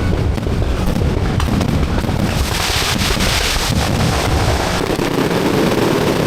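Fireworks going off in a continuous barrage of low bangs, with a dense crackling hiss that peaks around the middle.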